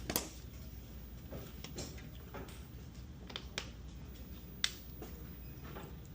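Scattered light clicks and taps from handling small wiring parts and tools, with a sharp click just after the start and another about two-thirds through, over a steady low hum.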